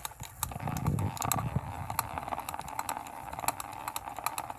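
Tiny makeup brush washing machine switched on with a click, then its small motor running with a steady hum and a constant stream of rattling clicks as it churns the brushes in soapy water.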